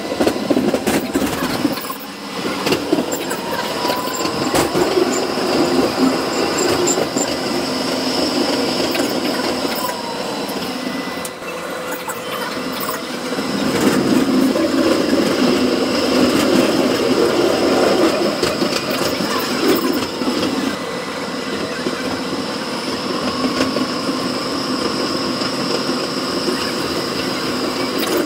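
Melbourne tram running along its track, heard from inside the passenger cabin: a steady rumble of wheels on rails with rattles and clicks from the car body and a few faint whines rising and falling in pitch. It grows louder about halfway through and eases again a few seconds later.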